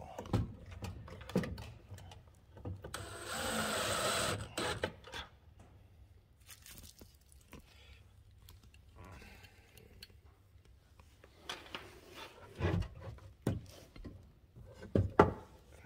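A cordless drill-driver runs once for about a second and a half, a few seconds in, driving a screw. Around it are scattered clicks and knocks of hands handling cables and parts, with a few louder knocks near the end.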